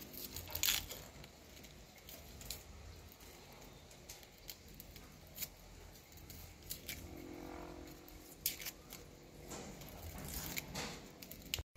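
Garlic cloves being peeled by hand: faint crackling of the dry, papery skins being pulled off, with scattered small clicks.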